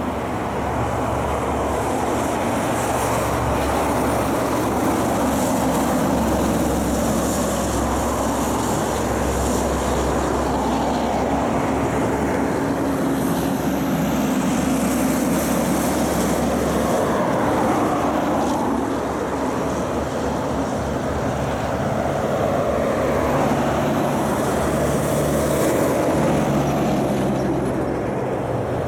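Heavy trucks driving along a highway: diesel engines running with tyre roar. The sound is steady throughout, and the engine note shifts in pitch now and then.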